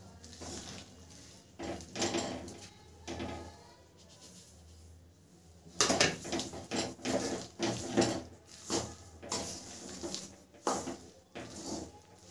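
Metal spatula scraping and knocking against a steel kadai while stirring a thick almond, sesame and jaggery mixture. Scattered strokes at first, then from about halfway a quick, louder run of scrapes and clanks, roughly two a second.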